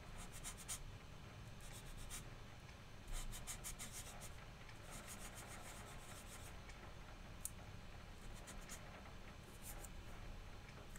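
Whiteboard eraser rubbing marker off the board in a few faint spells of quick back-and-forth strokes.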